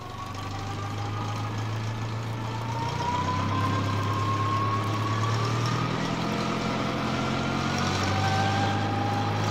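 A John Deere 4020 tractor's engine running steadily, its pitch climbing slowly, with a lower rising tone taking over in the last few seconds.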